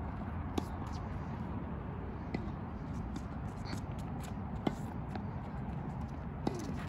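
Tennis rally on a hard court: sharp pops of the ball coming off racket strings, four in all and roughly two seconds apart, over a steady low outdoor rumble.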